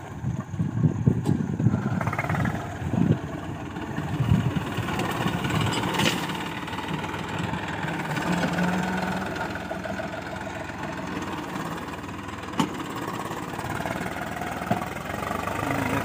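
Farm tractor's diesel engine running steadily as the tractor pulls a rear tillage implement through the soil, with irregular low rumbles in the first few seconds and two sharp clicks later on.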